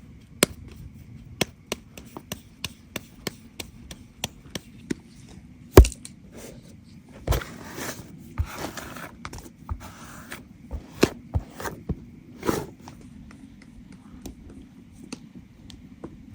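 Knife chopping on a wooden board: a run of sharp knocks at about two to three a second, one much heavier thump about six seconds in, then a few seconds of scraping and rustling before more scattered chops.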